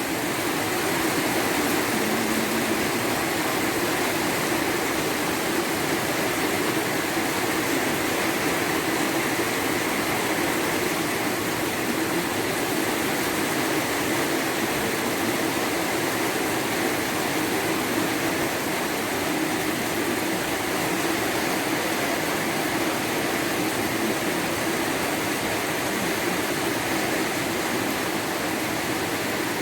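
Heavy rain pouring down in a steady, even rush that does not let up.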